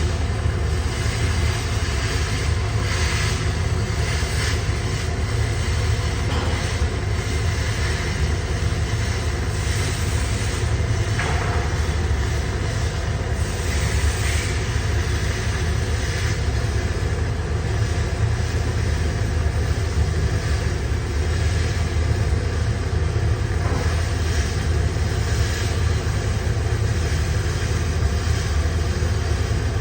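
Electric arc welding on 316 stainless steel: a steady, unbroken hum with a continuous hiss over it.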